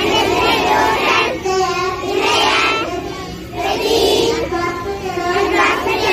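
Children singing a school prayer, in phrases of about a second with short breaks between them.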